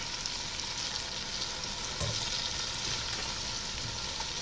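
Frozen chopped onions, bell pepper and celery sizzling in hot melted butter in a pot as they are stirred: a steady frying hiss.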